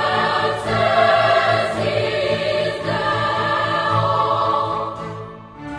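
Background music with sustained chords, fading out near the end.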